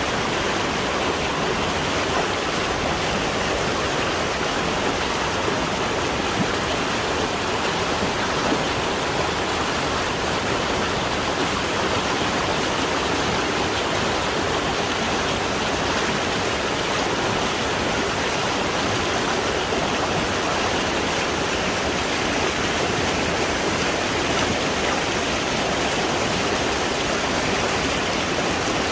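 Mountain valley stream rushing steadily.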